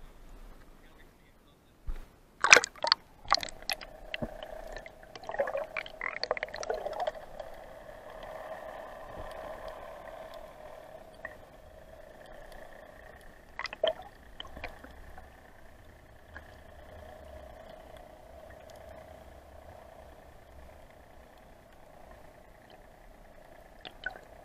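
Water sloshing and splashing as a camera is plunged into the sea, with a few sharp knocks about two to three seconds in, then bubbly gurgling. After that come muffled underwater sounds with a steady hum and another knock about halfway through.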